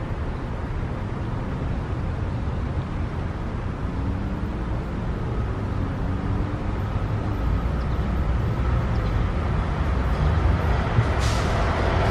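SEPTA AEM-7 electric locomotive and its commuter train approaching on the rails: a low rumble that grows steadily louder, a faint steady whine joining about five seconds in, and the first wheel clicks on the rail joints near the end.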